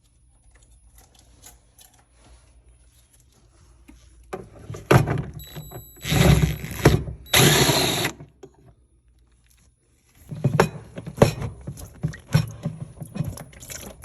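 Power driver with a small 1/4-inch nut-driver bit spinning in short runs, about 4 to 8 seconds in, backing out a screw. It is followed by sharp knocks and clatter of parts being handled.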